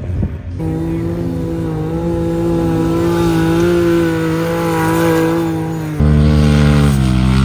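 Sport side-by-side (UTV) engine held at high revs under full throttle up a sand dune, a steady high-pitched drone that climbs slightly. About six seconds in a louder, deeper engine sound takes over, and its pitch drops a little near the end.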